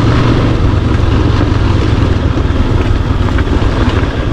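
Motorcycle engine running steadily while riding slowly over a rough, rocky dirt road, its sound mixed with a dense rumble of road noise.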